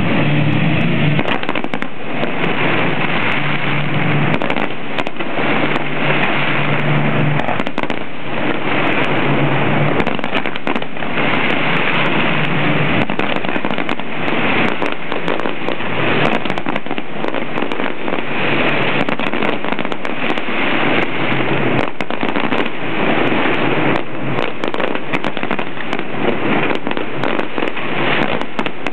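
Fireworks display, with many aerial shells bursting in quick succession: a dense, unbroken crackle of sharp bangs and pops.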